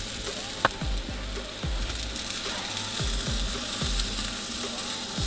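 Zucchini-and-egg batter frying in olive oil in a nonstick pan: a steady sizzle, with one short sharp click about half a second in.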